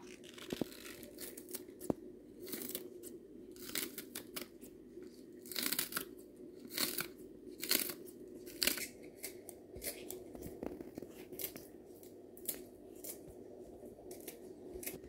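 Kitchen scissors snipping green onion leaves into short pieces: a series of irregular crisp cuts, roughly one a second, a dozen or so in all.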